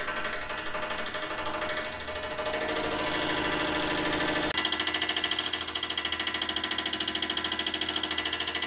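Blower fan of an old wall-mount propane heater spinning with a fast, steady scraping tick on every turn, the sign of the fan rubbing against its housing, which the owner puts down to the fan being a little off balance. The ticking changes character about halfway through.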